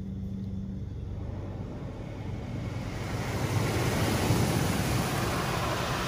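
Water jets from a Laserwash G5 touchless car wash spraying the car, heard from inside the cabin as a rushing hiss that swells about three seconds in as the spray hits the windshield.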